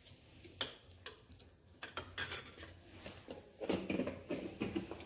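Kitchen utensils clinking and tapping against one another: a string of light, irregular clicks, busier in the second half.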